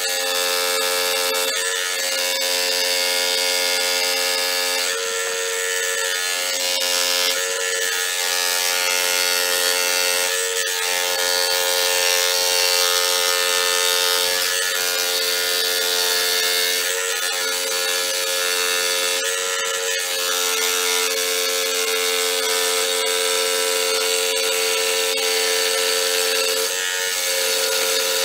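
Electric scroll saw running steadily, its blade going up and down through a wooden board as it is fed by hand. The motor's hum dips briefly every few seconds as the cut loads the blade.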